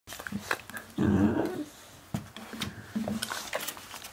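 A black hound puppy and a black retriever puppy play-fighting, mouthing and biting at each other's jaws: short low growls and scattered clicks and snaps, with a louder rough burst about a second in.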